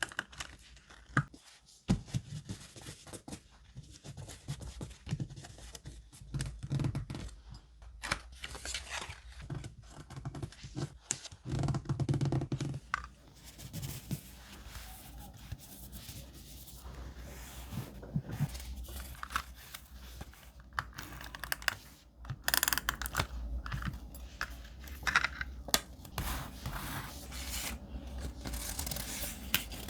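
Close-up paper crafting sounds: paper being handled, torn and cut, with many small irregular taps and clicks.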